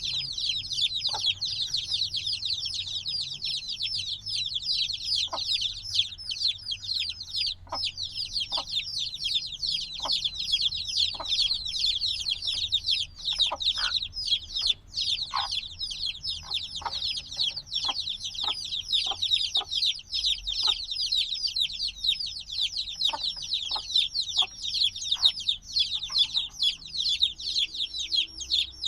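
A brood of newly hatched chicks peeping non-stop: a dense chorus of high, downward-sliding peeps, with occasional short lower calls mixed in.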